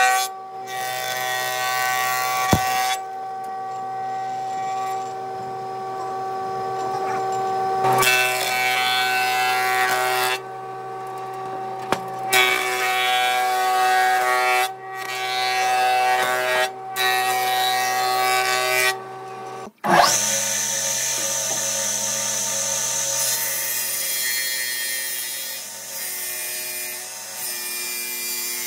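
Industrial thickness planer running and planing a thick wooden slab, a steady machine hum with chip noise, broken off abruptly several times. After a sudden break about two-thirds through, it gives way to a table saw's circular blade cutting through a thick slab.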